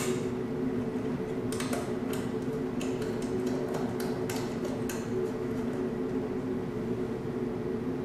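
Light clicks and taps of fingers working a clear plastic tube onto a small fitting on a carbon monoxide monitor, scattered through the first five seconds or so, over a steady hum.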